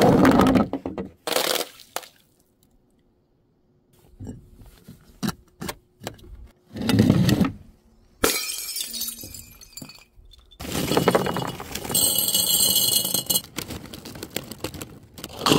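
A run of separate crunching, smashing and breaking-glass sounds, sudden crashes with short pauses between them. About eight seconds in, a glass jar of small colourful items hits concrete and shatters, and later crunchy snack puffs pour into a glass jar in a long, loud rattle.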